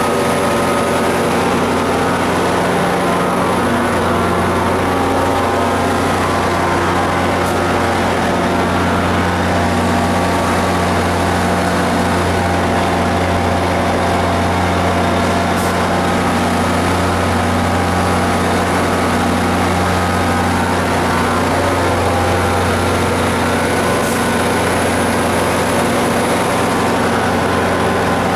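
Diesel locomotive engine idling with a steady, loud drone, heard up close beside the locomotive.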